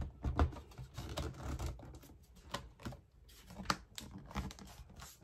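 Irregular light clicks and taps from the bottom half of a snap-on hard-shell case being pressed into place on a 13-inch MacBook Pro, its clips catching on the laptop's base. The sharpest clicks come near the start and about three and a half seconds in.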